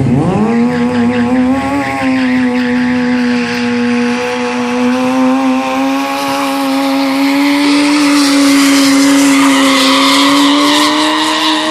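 Sportbike engine revved sharply at the start and then held at steady high revs, with tyres squealing and hissing on pavement during stunt riding.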